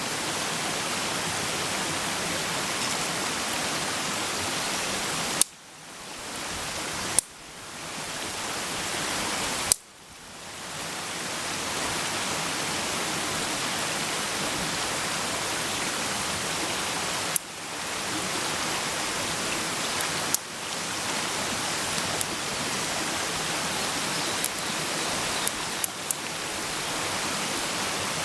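Food frying in a pan over a campfire: a steady sizzling hiss with a few sharp pops scattered through it.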